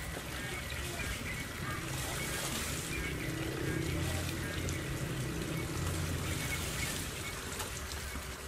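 A thin stream of water falling and splashing, with water poured out of a plastic basin and splashing down a few times.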